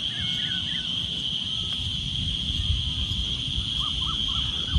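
Steady, high-pitched evening chorus of insects such as crickets, shrilling without a break. A few short chirping calls come near the start and again near the end, over a low rumble.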